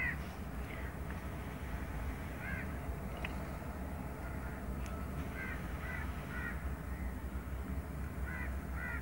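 Bird calls: short calls, often in pairs, come several times over a steady low rumble.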